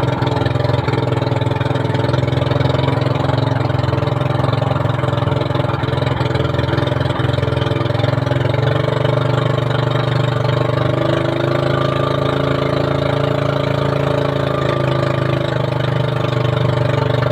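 Outrigger fishing boat's engine running steadily under way, a constant low drone with no change in speed.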